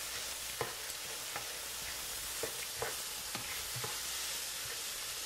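Ground beef and taco-seasoning mixture sizzling steadily in an electric skillet as it is stirred, with light scrapes and taps of the utensil against the pan every half second to second.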